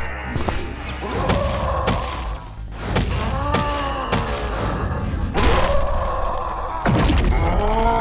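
Cartoon sound effects over background music: heavy thuds and drawn-out monster groans that fall in pitch, several times over, as a creature transforms.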